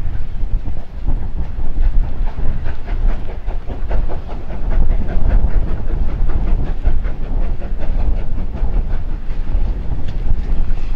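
GWR Hall class 4-6-0 steam locomotive 6989 Wightwick Hall passing under steam with a passenger train. Its exhaust beats come in a quick, regular rhythm over a deep rumble and the hiss of escaping steam, with the clatter of the carriages on the rails.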